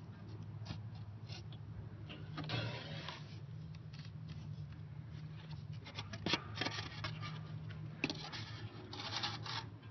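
Cardboard box flaps and foam packing scraping and rubbing as the box is opened by hand, with scattered clicks and knocks, over a steady low hum.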